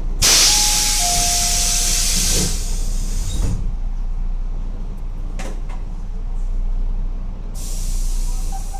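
Inside a Tobu 8000-series commuter train car: a sudden loud release of compressed air hisses for about three seconds, with a brief steady two-note tone during it, over the car's low steady rumble. A few light clicks follow, then another air hiss starts near the end.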